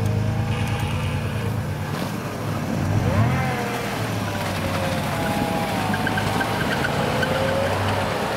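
Toyota 4Runner engine running under load as the truck ploughs through deep snow, revving up about three seconds in and then held at higher revs.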